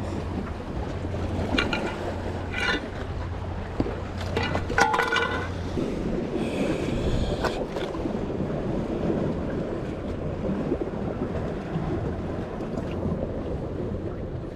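Wind buffeting the microphone over the steady wash of sea surf against rocks, with a few short sharper sounds in the first five seconds.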